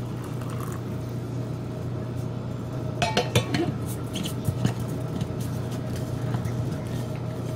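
Metal lid clinking and scraping against the rim of a stainless-steel vacuum insulated soup jar as it is set on and screwed shut: a cluster of sharp clinks about three seconds in and a few more about a second later, over a steady low hum.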